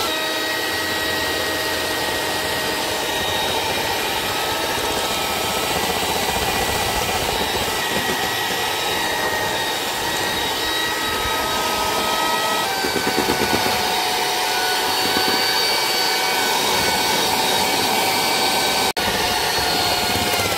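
Electric mixer running steadily, its beaters whipping butter, sugar and egg whites into a smooth buttercream-like batter. The motor's whine shifts pitch about two-thirds of the way through.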